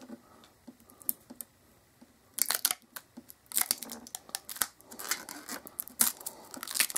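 Clear protective plastic film being peeled off a TV's plastic bezel, crackling and crinkling unevenly; faint at first, it gets louder and busier about two and a half seconds in.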